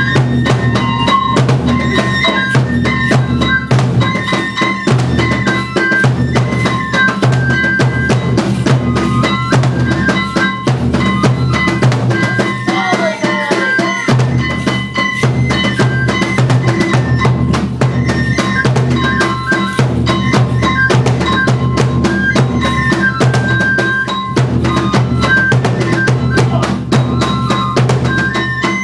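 Kagura music: a taiko drum beating a steady, dense rhythm under a high bamboo-flute melody of held notes. The drum drops out briefly about 13 seconds in, then resumes.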